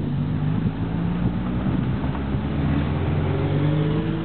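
Street traffic with a vehicle accelerating, its motor note climbing steadily in pitch over a constant low rumble.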